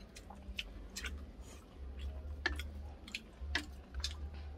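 People eating: scattered small clicks and crunches of chewing and utensils, over a low rumble.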